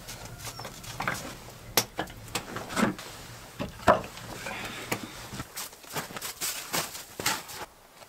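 Flat stones knocking and scraping together as they are picked up and set down by hand, in irregular clacks.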